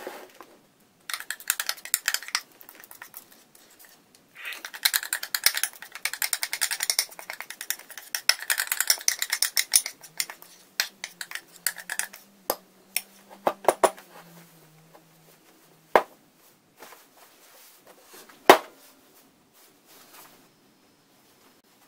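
Metal spoon scraping chocolate cake batter out of a ceramic bowl into a ceramic mug: rapid scraping and clinking of spoon on china, then scattered taps, with two sharper knocks near the end.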